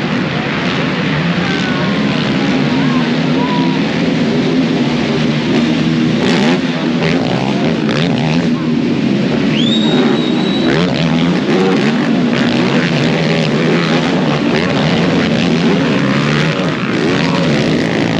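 Several racing ATV (quad) engines revving and shifting as the quads run the motocross track.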